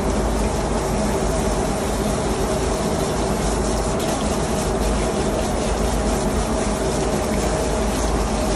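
Water jet from a hose spraying and splashing against the steel walls inside an oily water separator housing, over a steady machinery hum.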